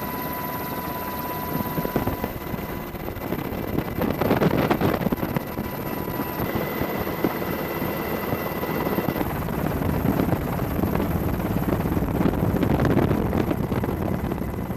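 Helicopter rotor chop and turbine whine, a steady dense rotor noise with a thin steady whine over it, swelling a little a few seconds in and again near the end.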